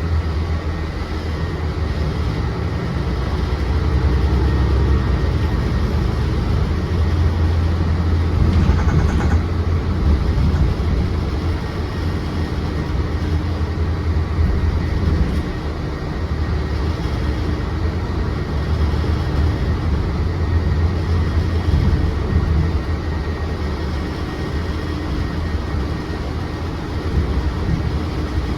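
Interior of a Mercedes-Benz Citaro C2 city bus on the move: a steady low engine and road rumble that swells and eases as the bus speeds up and slows.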